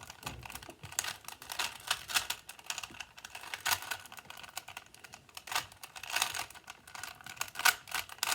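Rubik's brand 3x3 cube being turned fast during a timed solve: a rapid, irregular run of plastic clicks and clacks as the layers snap round.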